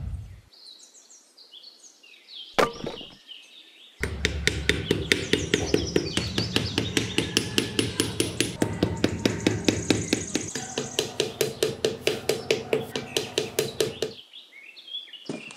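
Rapid, even tapping of a small hammer driving thin wooden sticks into sand, about five strikes a second, starting about four seconds in and stopping near the end. Before it there are only a few faint high chirps and a single click.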